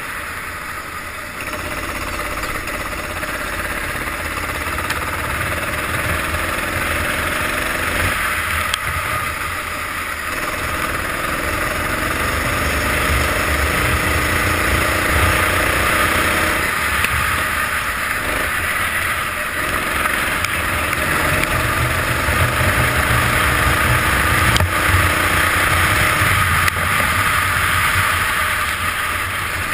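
Go-kart engine heard onboard, its pitch climbing as it accelerates along the straights and dropping back when it slows for the corners, several times over. A steady rush of wind noise sits underneath.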